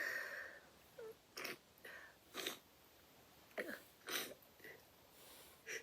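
The end of a person's sneeze trails off at the start, then comes a string of about nine short, faint breathy sounds at uneven intervals, during a bout of sneezing.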